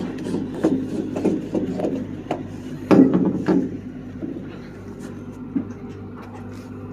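A run of knocks, clatter and rubbing, loudest about three seconds in and thinning out after that, over a steady low mechanical hum.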